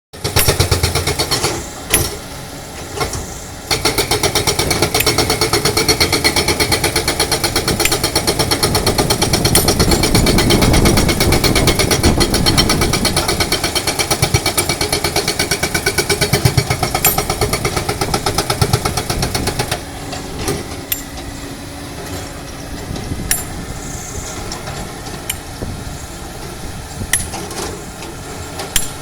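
Excavator-mounted hydraulic rock breaker hammering on rock in rapid blows, briefly at the start and then steadily from about four seconds in until about twenty seconds in. After it stops, the excavator's engine runs on with occasional sharp metallic knocks.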